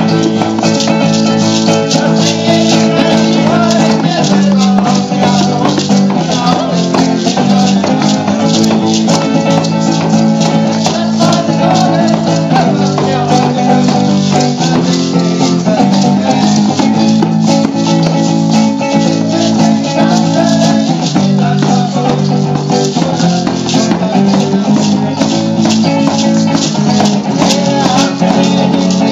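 Live band music: strummed acoustic guitars with hand shakers rattling steadily in time.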